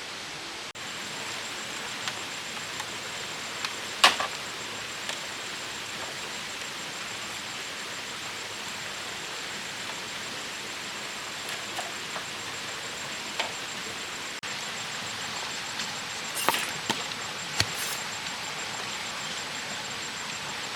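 Steady hiss with a thin high steady tone, broken by scattered sharp knocks and taps: the loudest about four seconds in, a few more near the end.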